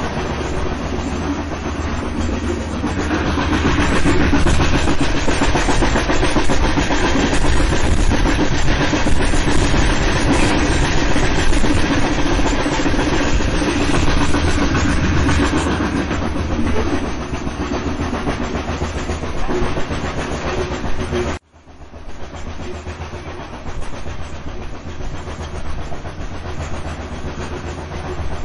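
Steam train running along the rails, a steady rumble with strong low end. About three quarters through the sound cuts out for an instant and comes back quieter.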